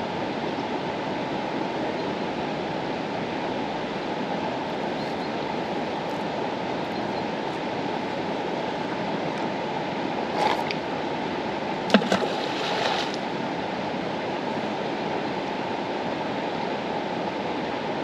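Mastallone mountain river rushing and flowing steadily over its bed. A little past halfway, a few brief sharp knocks cut through the water noise.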